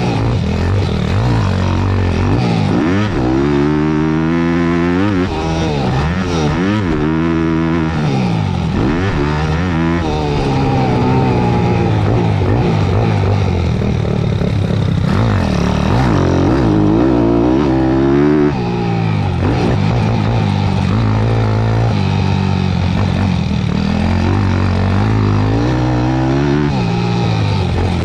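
Thumpstar 190 pit bike's single-cylinder four-stroke engine ridden hard on a dirt track, its pitch rising and falling over and over as the throttle is opened and closed through the corners and jumps.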